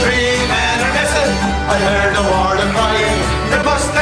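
Men singing an Irish folk song to strummed acoustic guitar, mandolin and bodhrán.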